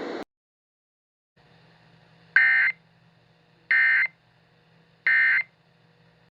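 Emergency Alert System end-of-message (EOM) signal: three identical short bursts of warbling digital data tones, about 1.3 seconds apart, marking the end of the alert. A faint low hum runs beneath them.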